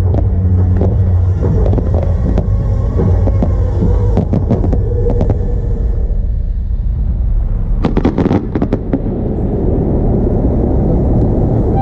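Aerial fireworks display: a continuous low rumble of shell bursts with many sharp bangs, and a dense rapid crackle of reports about eight to nine seconds in.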